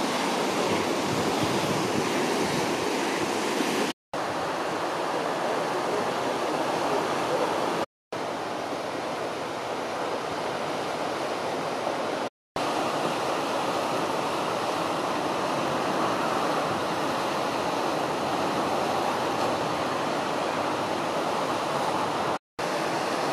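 Sea surf breaking and washing over coastal rocks: a steady rushing noise that cuts out for an instant four times.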